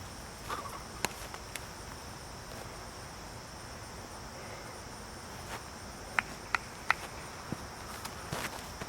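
Steady high-pitched chorus of insects, with three sharp clicks in quick succession about six seconds in.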